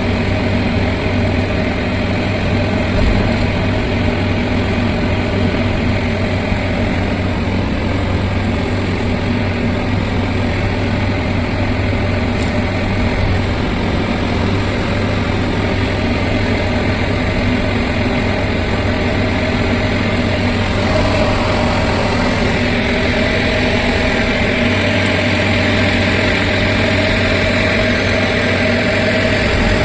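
Heavy diesel engine of construction machinery running steadily, picking up slightly past the two-thirds mark.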